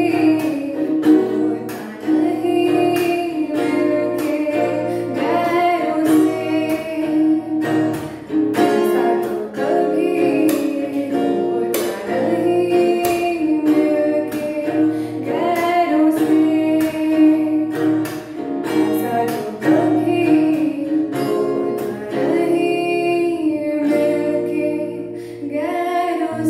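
A teenage girl singing a melodic song over plucked guitar accompaniment.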